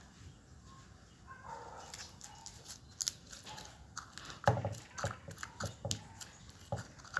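Slime being squeezed and kneaded by hand, giving a string of short wet clicks and pops, most of them in the second half.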